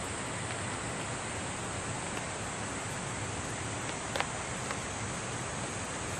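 A steady rushing hiss, like running water, with a few light clicks of chopsticks against a metal bowl, the clearest a double click about four seconds in.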